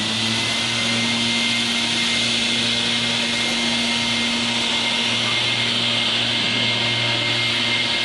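Small motor running steadily at high speed: a loud rushing noise over a steady hum.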